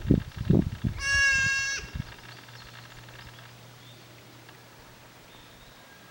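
A goat bleats once, about a second in: a single high, steady-pitched call lasting under a second. Low muffled thumps come before and around it, and after that only a faint low hum is left.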